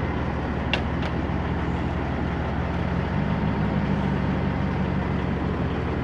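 Peterbilt 379 semi truck's diesel engine idling steadily, its pitch stepping up slightly about three seconds in. Two short sharp clicks just under a second in.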